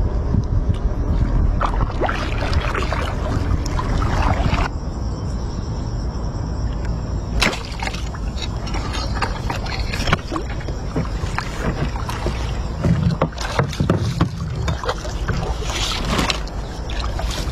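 Water splashing and sloshing as a multi-pronged fish spear is thrust and worked in shallow water beside a boat, over a steady low rumble. There are sharper splashes about halfway through and again near the end, when the spear is pulled out dripping.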